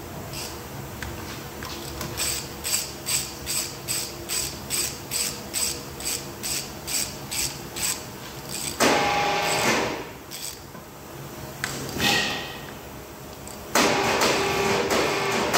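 Ratchet wrench on a long extension clicking at an even pace, about three clicks a second, while the end-bell bolts of a large DC motor are worked. From about nine seconds in come louder bursts of metal scraping and rattling.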